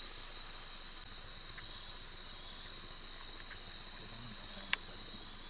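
A steady, high-pitched chorus of crickets and other night insects, with a single sharp click near the end.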